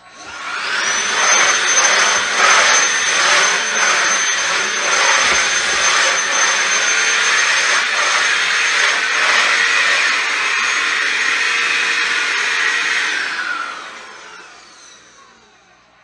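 Dewalt DCV501HB 20V cordless handheld vacuum switched on: its motor spins up within a second to a steady high whine with rushing air, while many small ticks and rattles come from debris being sucked up through the floor nozzle and tube. About 13 seconds in it is switched off, and the whine falls away as the motor winds down.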